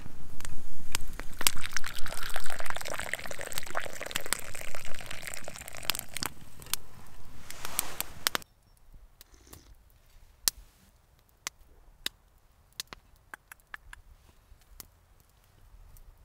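Hot spruce tea poured from a metal pot into a wooden kuksa cup, with the fire in a small wood stove crackling. After about eight seconds this stops abruptly, leaving quiet with scattered faint clicks.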